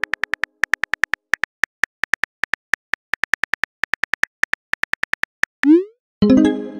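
Texting-app keyboard click sound effects, rapid even taps as a message is typed, then a short rising swoosh and a chiming message tone near the end as it is sent.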